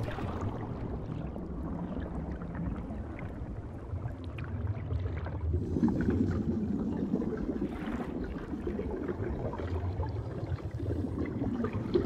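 Underwater ambience: a steady low rush of water, swelling with bubbling about six seconds in and again near the end.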